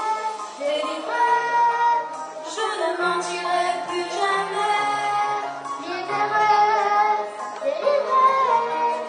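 Young girls singing into microphones over a backing track, their sung notes held and shifting over a steady bass line.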